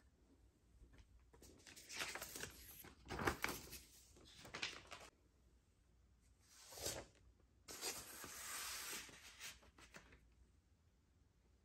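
Vinyl record sleeves rustling and scraping as an LP and its paper inner sleeves are handled, in several short bursts and then a longer steady rustle lasting about two seconds.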